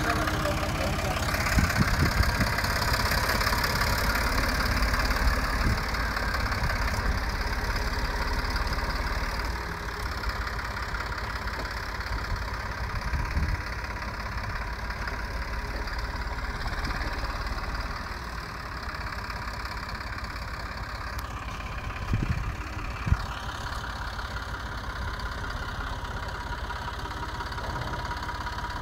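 Erkunt Nimet 70 four-wheel-drive tractor's diesel engine running steadily under load as it pulls a plough through stony soil. It grows fainter after about ten seconds as the tractor moves away. A few short knocks come about two seconds in and twice around 22–23 seconds.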